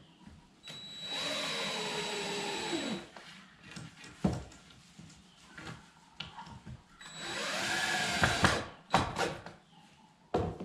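Cordless drill running into lumber twice, about two seconds each time, its whine dropping in pitch as it slows under load near the end of each run. Sharp knocks of wood and tool handling come in between.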